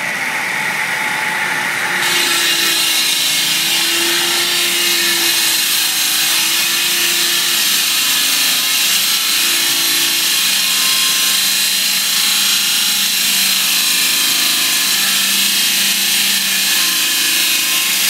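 Air-powered concrete saw cutting through a concrete wall: a loud, steady hiss and whine that gets louder and harsher about two seconds in.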